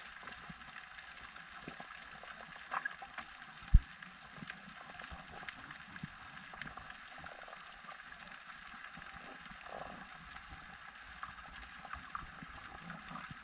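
Underwater ambience picked up by a camera: a faint steady hiss with scattered small clicks and crackles, and one sharp low thump about four seconds in.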